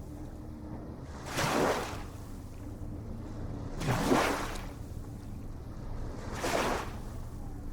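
Ocean waves breaking and washing in. Three swelling hisses come about two and a half seconds apart over a steady low rumble.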